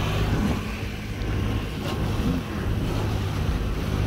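Honda four-stroke outboard motor running steadily under way, a low even hum mixed with wind on the microphone and water rushing past the hull.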